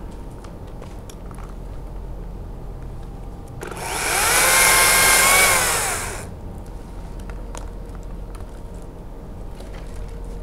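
Makita top-handle battery chainsaw running in one short burst of about two and a half seconds, about four seconds in. Its motor whine rises as it spins up, holds steady, then falls away as it stops.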